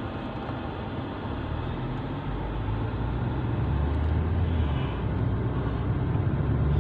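Car engine and road noise heard from inside the cabin: a steady low rumble that grows louder from about two seconds in as the car picks up speed.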